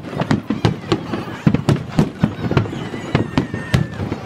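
Fireworks finale: aerial shells bursting in quick succession, about four or five sharp bangs a second, each with a low rumbling tail. The recording is played back sped up.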